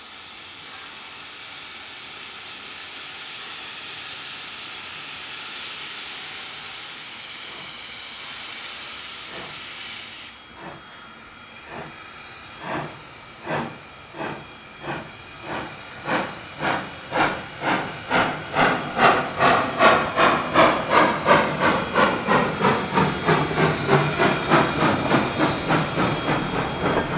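1917-built 2-6-2 steam locomotive 354.7152 hissing steam, which cuts off about ten seconds in. It then starts away with its train, its exhaust chuffing at first about once a second, then growing louder and quickening to about two beats a second as it draws near.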